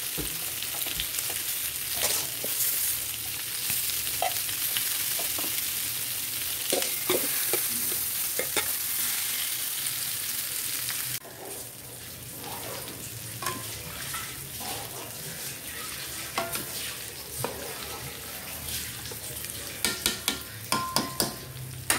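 Soaked rice tipped into a pot of boiling spiced chicken stock and stirred in with a plastic slotted spoon: a steady bubbling hiss with short knocks of the spoon against the pot. The hiss drops abruptly about halfway through and carries on more quietly.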